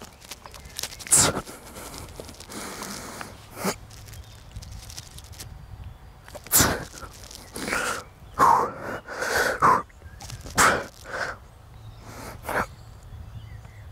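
A man's forceful, breathy exhalations while doing chin-ups, a sharp breath out with each pull. They come about every two seconds at first and faster in the second half, as the set gets hard.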